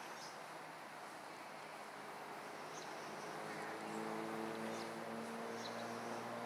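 A distant engine droning steadily over outdoor background noise, stronger from about halfway through, with a few short high chirps on top.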